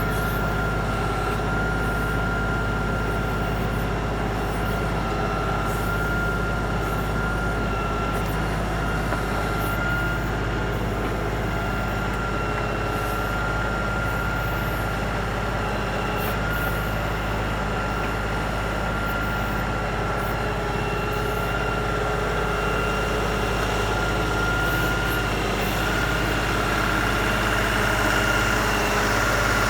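Diesel engine of an LS XR3135 compact tractor running steadily, with a steady high tone over it. It gets slightly louder near the end.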